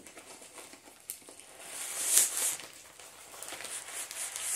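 Packaging rustling as the contents are drawn out of a cut-open mailing package, with a louder rustling swell about two seconds in.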